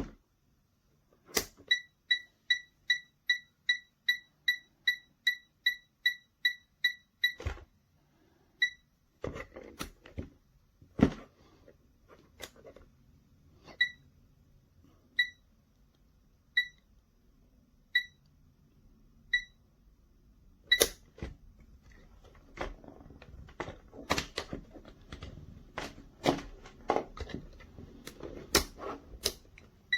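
Digital multimeter beeping: a quick run of short, high beeps about three a second for several seconds, then single beeps about every second and a half. Clicks and handling knocks, such as a selector dial turning and the meter being moved, become frequent near the end.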